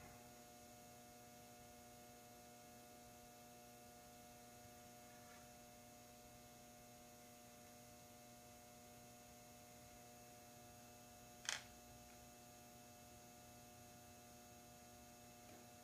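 Near silence with a steady electrical hum, broken by one short click about eleven seconds in.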